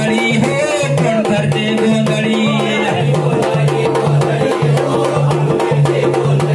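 Loud rhythmic folk music for a circle dance: a steady drum beat with sharp percussion strokes over a repeating bass line, with a melody above.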